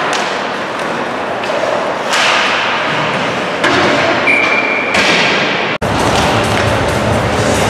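Ice-rink game noise: a steady din with dull knocks, as of sticks and puck, and a brief steady high tone about halfway through. The sound cuts out for an instant a little before the end.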